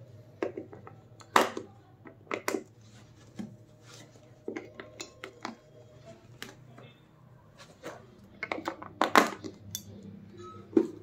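AA batteries being handled and pushed into the plastic battery bay of a radio-control transmitter: irregular sharp clicks and knocks of the cells against the plastic holder, two of them louder, about a second and a half in and near the end.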